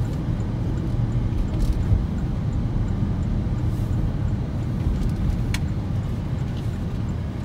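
Steady low rumble of a car driving on a city street, tyre and engine noise heard from inside the cabin, with two faint clicks.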